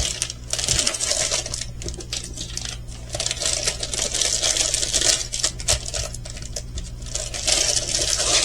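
Hands handling the plastic packaging of a diamond-painting kit: irregular rustling with many small clicks and rattles.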